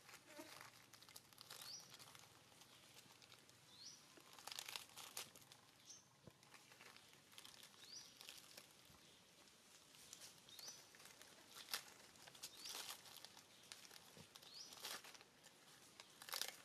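Plastic snack bag crinkling and rustling in irregular bursts as a monkey handles it and pulls out bread. A short high chirp repeats about every two seconds.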